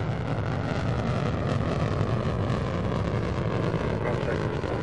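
Soyuz-FG rocket engines in the first seconds of ascent, a steady deep rumble.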